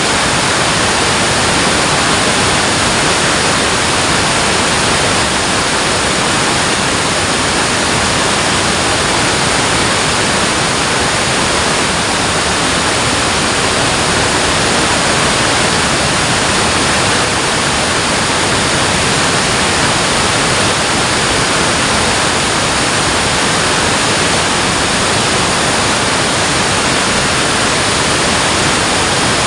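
Water pouring over a dam, a steady, loud rushing that stays the same throughout.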